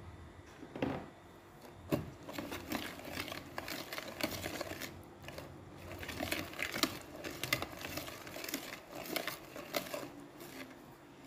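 Wire whisk clinking and scraping against a glass bowl as it stirs a runny egg, oil and sugar batter with raisins: rapid, irregular clinks starting about two seconds in and running until near the end.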